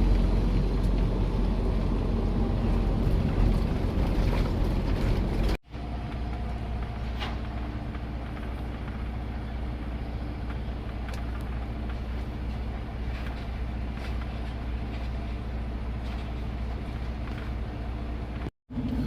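Semi truck's diesel engine and cab noise, a steady low rumble. It is louder for about the first five seconds, cuts out suddenly, then carries on quieter and steadier, with another brief cut-out near the end.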